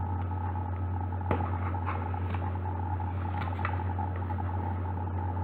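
Steady low background hum throughout, with one sharp click about a second in and a few light ticks and rustles of card stock being flexed and thread pulled through its needle holes.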